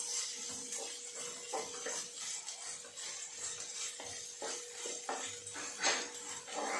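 A wooden spatula stirring and scraping vegetables in a terracotta clay pot: a run of short, uneven scrapes and light knocks against the pot, over a faint steady hum.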